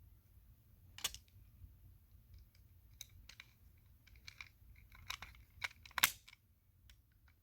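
Small, scattered clicks and taps from handling the parts of a diecast toy car while fitting a door and screwing it on, with a cluster of clicks between five and six seconds in, the sharpest near six seconds.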